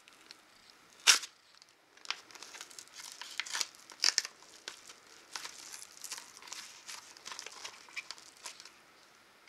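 Mailing envelope and plastic wrapping being opened by hand: a sharp rip about a second in, then irregular crinkling and rustling of paper, tissue and a plastic bag as a silicone phone case is worked out of its packaging.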